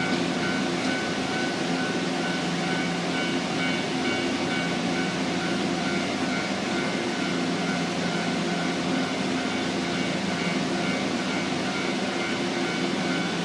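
Shinano Railway electric train giving a steady hum of motors and onboard equipment, several even tones that hold their pitch over a constant rumble.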